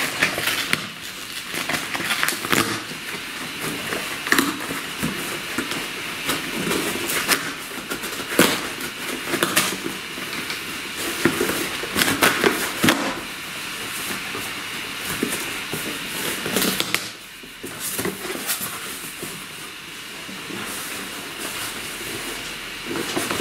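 Packing tape being picked at and ripped off a cardboard shipping box, with irregular tearing, crackling and rustling of cardboard. Near the end, crumpled paper packing rustles as it is pulled out of the opened box.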